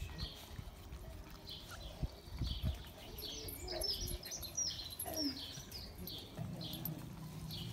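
Garden birds chirping and singing: short repeated high chirps.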